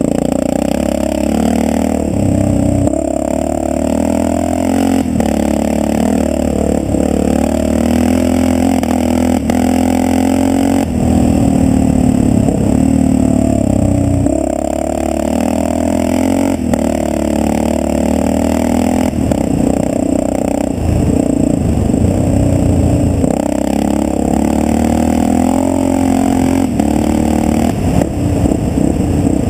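Yamaha XT600's single-cylinder four-stroke engine running hard, its pitch rising and falling with the throttle through the ride, with short clatters of the bike jolting over the gravel track.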